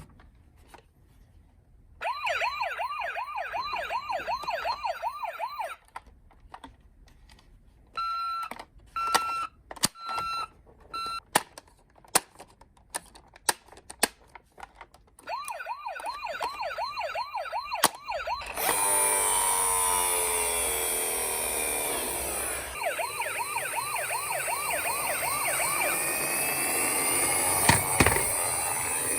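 Electronic toy sirens from battery-powered emergency-vehicle minicars. A fast wailing siren plays, then four short beeps and scattered clicks, then the wail again. From about two-thirds of the way in, several sirens overlap in a louder, denser noise.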